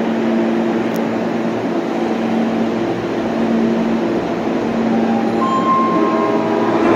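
Osaka Metro Sakaisuji Line subway train at the station platform: a steady rumble with a constant low hum. Near the end a few steady whining tones at different pitches come in.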